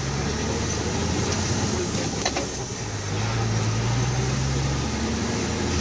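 Engine drone and road noise heard from inside a moving vehicle's cab. The low hum eases off about half a second in and picks up again around three seconds in, as the throttle changes.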